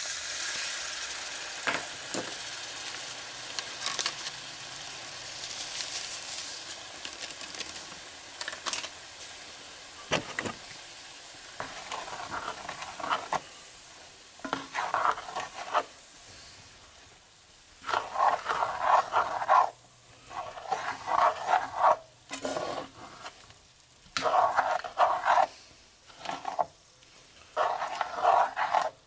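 Water poured into a hot frying pan of chicken and taco seasoning hisses and sizzles, fading over the first ten seconds or so. After that a spatula stirs and scrapes through the pan in repeated strokes, each a second or two long, with short pauses between them.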